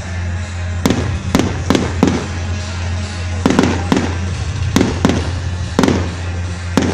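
Aerial fireworks shells bursting in a quick, irregular series of sharp bangs, about ten in all, with a short lull around two to three seconds in.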